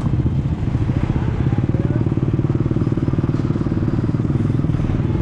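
A small engine running steadily nearby, a low, rapid, even pulse that holds at the same pace, with faint voices behind it.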